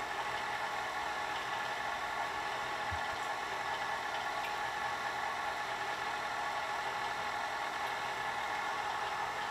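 A steady machine hum with many even tones, with a soft low knock about three seconds in.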